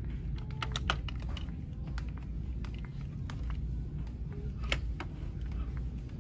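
Plastic shopping cart rolling over a hard store floor: a steady low rumble with scattered light clicks and rattles.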